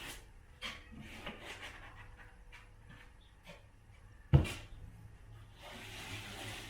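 Drywall taping work: a taping knife scraping cornice cement compound over a joint, with scattered light clicks and one sharp knock about four seconds in.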